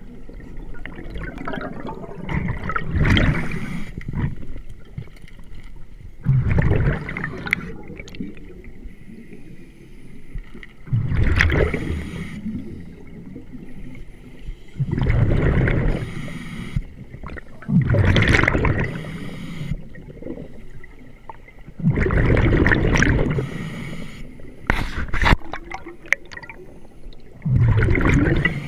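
Scuba regulator breathing underwater: gurgling bursts of exhaled bubbles about every four seconds, with a quieter hiss between breaths.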